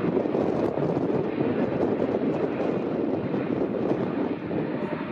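Jet engines of a heavy wide-body airliner, a steady rush of noise without breaks.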